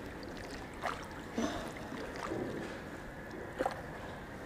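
Harbour water lapping and sloshing against a jetty wall, with three short splashes about 1, 1.5 and 3.6 seconds in, as a hand holds a caught wrasse in the water to revive it.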